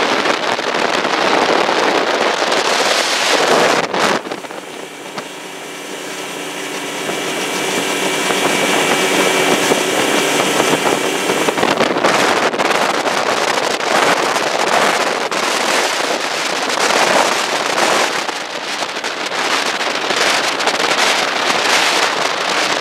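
Bass boat running at speed: heavy wind buffeting on the microphone over the steady drone of its outboard motor, the motor coming through most clearly for several seconds in the middle.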